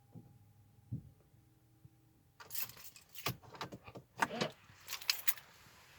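A faint steady tone over a low hum, then from about two and a half seconds in a run of sharp clicks and rattles, like something being handled.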